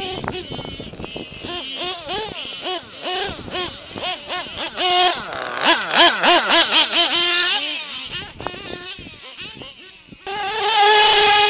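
Small SH .31 two-stroke gasoline engine of a 1/8-scale R/C truggy, revving up and down in quick, repeated swells as the truggy is driven around a dirt track. Near the end it holds a loud, rising full-throttle note as it passes close.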